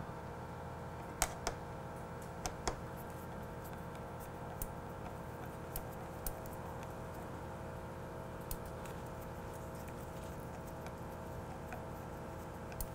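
Scattered small clicks and ticks, about nine of them, as a screwdriver turns the pivot screw of an aftermarket brake lever into the handlebar lever mount, over a steady low background hum.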